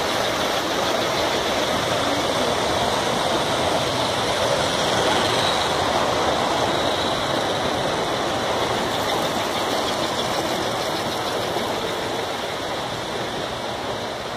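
S gauge model trains running on the layout track: a steady rumble and whir of wheels and motors, swelling a little midway and easing off near the end.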